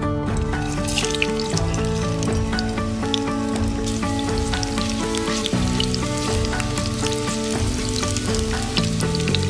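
Food frying in a hot pan, sizzling and crackling from about a second in, over background music.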